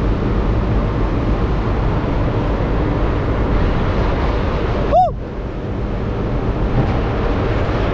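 Steady rushing wind and low rumble on a ship's open deck. A brief tone rises and falls about five seconds in.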